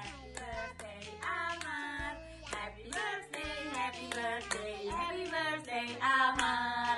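A song with singing over a stepping bass line, with hands clapping along in sharp claps.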